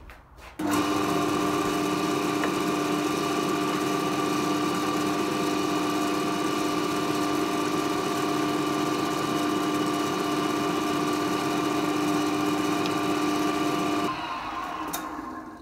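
Record Power wood lathe's motor switched on, running at a steady speed with an even hum, then switched off a little before the end and winding down.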